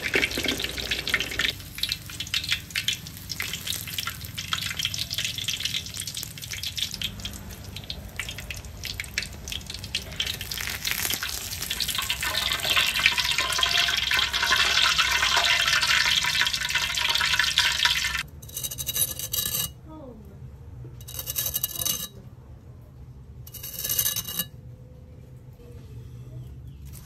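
Pork belly deep-frying in a wok of hot oil: a dense sizzle full of fine crackling pops as the skin crisps into crackling, which stops abruptly about two-thirds of the way through. Three short crackly bursts follow a couple of seconds apart.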